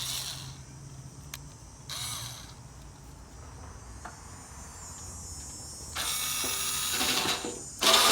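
Power driver backing a rusty screw out of an air conditioner's sheet-metal housing: short bursts, then a longer run near the end. Cicadas buzz steadily underneath.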